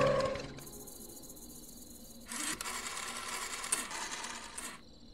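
Rotary telephone dial being turned and running back, a fast clicking whir in two stretches, the second fuller than the first.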